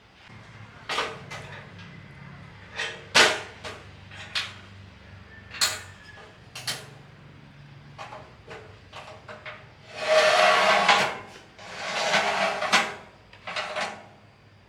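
Hand tools and metal parts knocking and clattering in repair work, a dozen or so separate knocks and clicks, with two longer scraping sounds of about a second each about two-thirds of the way in.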